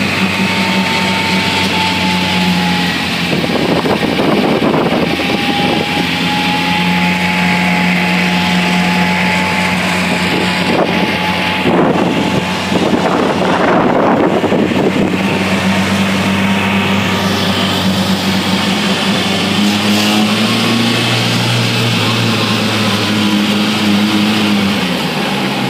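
Open dune buggy's engine running steadily while riding along, heard from inside the buggy, with wind and road noise and two louder rushes of noise around four and thirteen seconds in. The engine pitch rises a little about twenty seconds in.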